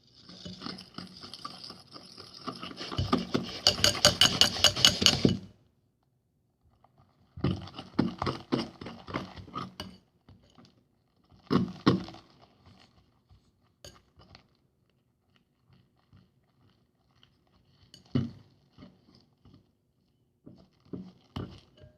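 Borax and water being stirred in a container: rapid clinking and scraping strokes of a utensil against the container's sides, fastest and loudest in the first five seconds, then two shorter runs of stirring and a few scattered taps.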